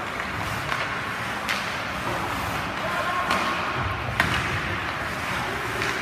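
Ice hockey play: about four sharp knocks of sticks and puck, the loudest about four seconds in, over a steady arena din.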